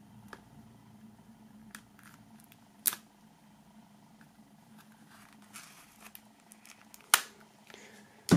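Pocket-knife blade slitting plastic shrink-wrap film: faint rustling of the film with scattered small clicks and two sharp clicks, about three seconds in and, loudest, about seven seconds in.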